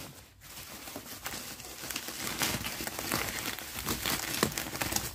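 Plastic bubble wrap crinkling and rustling as it is pulled open by hand, a dense run of small crackles that grows louder about two seconds in.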